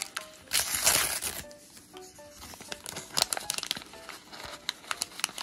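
Plastic capsule wrapping crinkling and being torn open, loudest in a long tear about half a second to a second and a half in, then lighter crinkles and small clicks. Quiet background music with short notes plays underneath.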